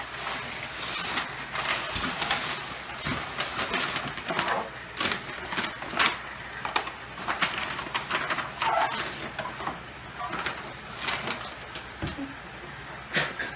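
Paper rustling and crinkling in someone's hands in irregular bursts: tissue paper pulled from a gift box, then a manila envelope handled and papers drawn out of it.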